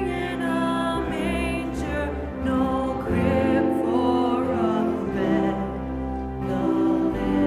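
Sung music with instrumental accompaniment: sustained sung notes that move from pitch to pitch, in the manner of a church hymn or carol.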